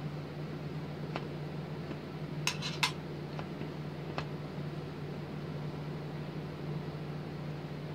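Small sharp clicks and taps of metal tweezers against a glass work surface, with a quick run of three, the loudest, about two and a half seconds in.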